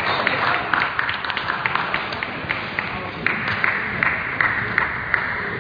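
Scattered clapping from spectators in a large sports hall, over background chatter, with irregular sharp clicks throughout.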